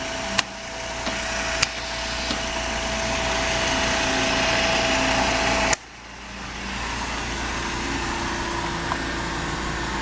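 Bracker RN201 radial riveting machine running, with a few sharp clicks near the start and a steady whirring hiss and hum that grows louder. About six seconds in it cuts off suddenly, then starts up again and runs steadily.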